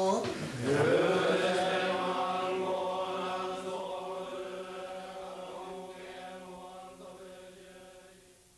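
Buddhist chanting by a male voice: a held chanted tone dips in pitch and rises again near the start, then the chant goes on steadily and fades out gradually over the last few seconds.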